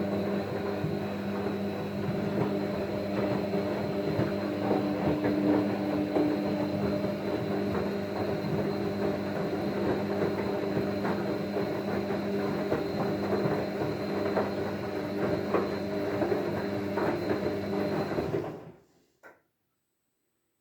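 Gorenje WNHVB60SES washing machine running: a steady layered hum with irregular clicks and rattles throughout. The sound dies away about 19 seconds in, with one short knock after it.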